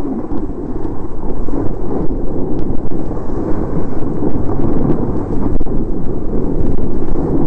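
Wind buffeting the camera microphone while riding fast down a ski slope, a loud steady low rumble, with the scrape of snow underneath.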